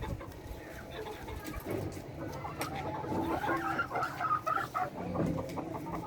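A flock of laying hens clucking, several birds calling at once, the calls growing busier and louder from about halfway through.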